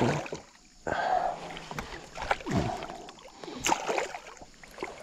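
Water splashing in irregular bursts as a hooked giant snakehead thrashes at the surface beside a kayak.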